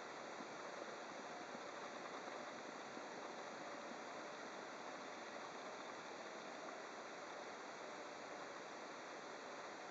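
Steady rushing noise of wind and sea water around a boat on open water, with a faint steady hum underneath.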